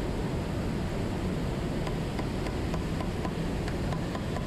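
Steady rushing background noise, with a quick run of small sharp clicks starting about two seconds in as pliers twist wire tight around wooden poles.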